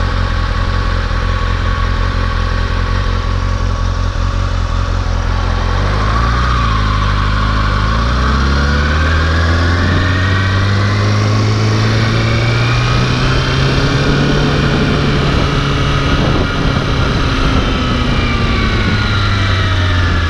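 Kawasaki Ninja 636 sport bike's inline-four engine idling, then pulling away about six seconds in: the engine note climbs, holds higher as the bike rides along slowly, and falls again near the end as it slows.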